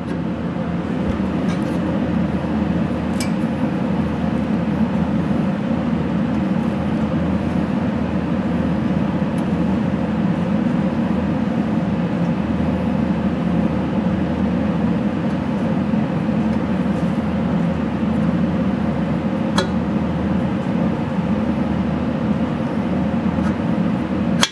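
A steady low background hum, with a few light metallic clicks as a bronze bushing is worked by hand into a cast-iron motor end bell.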